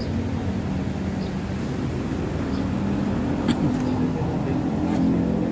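A vehicle engine running steadily, growing a little louder near the end, with a single sharp click about three and a half seconds in.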